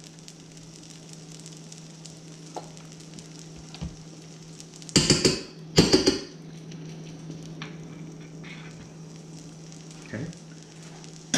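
Steady sizzle of French toast frying on a griddle, with two loud brief noises about five and six seconds in, and a short scrape near the end as a spoon spreads sauce on the plate.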